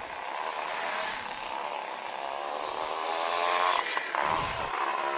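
Motorcycle engine running on the road, its pitch rising through a gear as it speeds up about three seconds in, with wind rushing over the microphone and a gust near the end.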